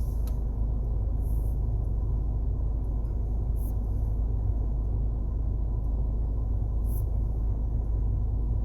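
Steady low rumble inside a Peugeot 3008's cabin, typical of the engine idling, with a few faint ticks.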